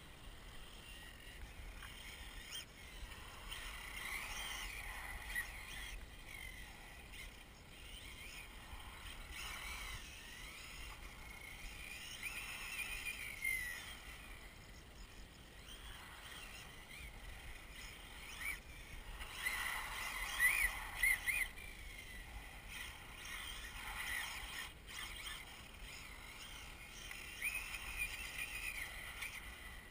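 The distant whine of an RC car's 2200kv brushless electric motor, rising and falling in pitch as the throttle is worked through the corners. It swells every seven or eight seconds as the car comes round the track.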